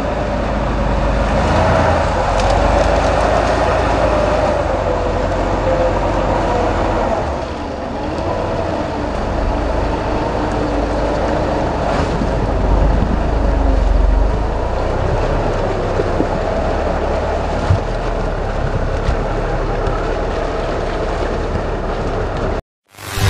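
Toyota Land Cruiser 80-series 4x4s on big mud tyres working through deep mud, engines running under load with revs rising and falling. The sound cuts off suddenly near the end.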